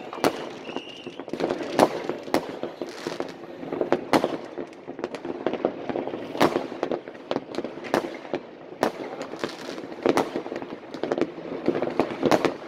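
Many New Year's fireworks and firecrackers going off across a town: a stream of sharp bangs at irregular intervals, one or two a second, over a constant background of further bangs and crackling.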